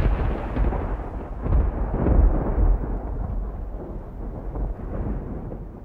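Explosion sound effect: a deep rumbling boom dying away over several seconds, swelling again briefly about one and a half to two seconds in.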